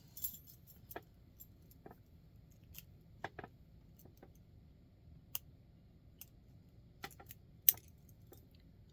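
Flat steel warded pick keys jingling and clicking against an antique warded padlock as they are inserted and turned, tried one after another to find one that will pass the wards and trip the spring. Scattered light metallic ticks, with one sharp click a little before the end the loudest.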